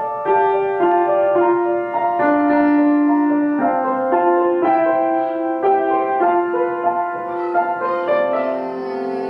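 Upright piano being played: a simple, gentle melody of single struck notes over held lower notes, a piece the player is learning for the first time.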